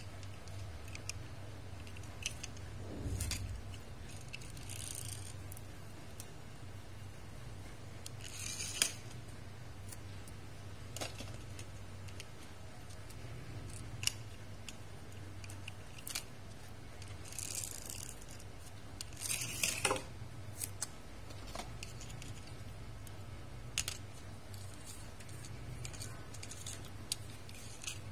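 Small toy cars being handled and pushed by hand: scattered light clicks and knocks, with a few short whirring scrapes of their wheels.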